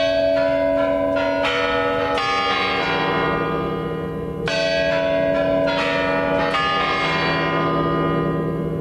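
The Kremlin's Spasskaya Tower clock chimes striking the New Year midnight, playing the quarter-chime melody. The bell notes come one after another in phrases, with a new phrase starting about every four and a half seconds.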